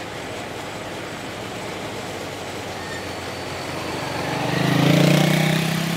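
Peugeot P4 military 4x4s driving through a muddy, water-covered track. From about four seconds in, an engine note rises in pitch and grows louder as the lead vehicle comes close.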